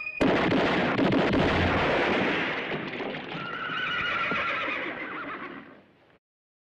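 A horse whinnying. It starts abruptly about a quarter second in, rises and falls in pitch in the middle, and fades away shortly before the end.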